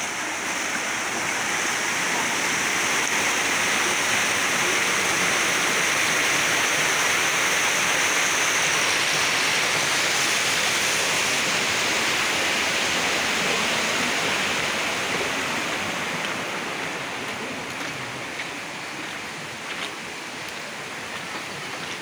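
Shallow canyon stream rushing over rocks, a dense steady hiss of water. It grows fainter after about fifteen seconds.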